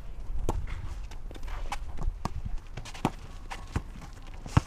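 A basketball bouncing and players' footsteps on a rubber-surfaced outdoor court: a series of irregular sharp thuds, the loudest near the end.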